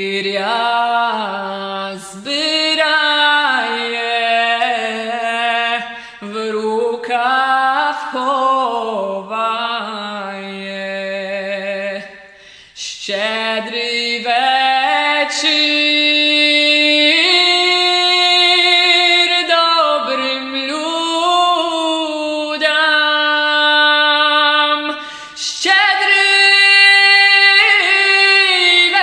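A woman singing solo without accompaniment: long held notes that waver in pitch, in phrases broken by short breaths every few seconds.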